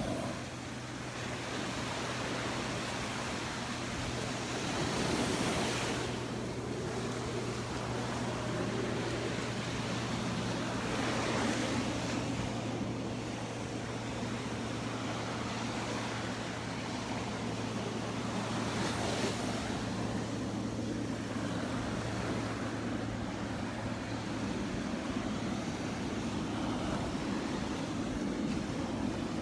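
Small Gulf of Mexico waves breaking and washing up the beach, with a surge about every six to eight seconds, and wind on the microphone.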